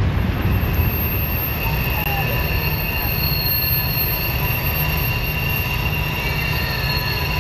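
Freight train rolling past on the curve: a steady low rumble of wheels on rail, with high, held squealing tones from the wheels on the curved track.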